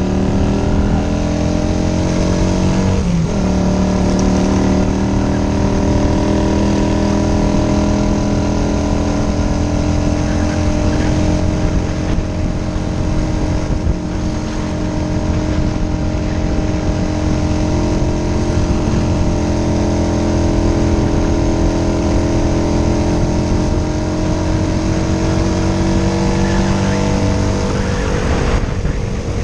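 Engine of a 1978 Honda CG 125, a single-cylinder four-stroke, running under way. Its pitch climbs for the first three seconds, drops sharply at an upshift about three seconds in, then holds a steady cruise and falls slightly near the end.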